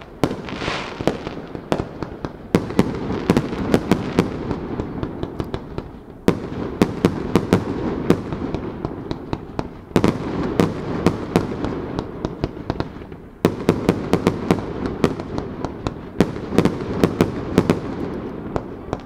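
Fireworks display: aerial shells bursting one after another, many sharp cracks over a continuous low rumble. A fresh volley comes in about every three to four seconds.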